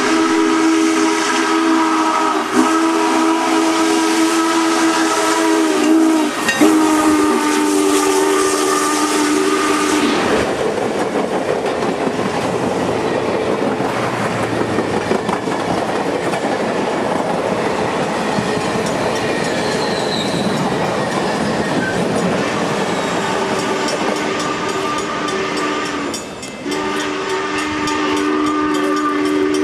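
Union Pacific Challenger No. 3985 steam locomotive blowing its chime whistle in three long blasts for a grade crossing. It then passes close by with a loud rush and rumble of the rolling train. The same whistle chord sounds again near the end.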